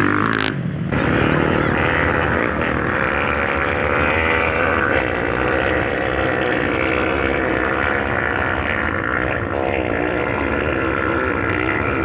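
Several motocross dirt bikes running hard and revving as they climb a steep dirt hill, their engines overlapping in a continuous, wavering drone.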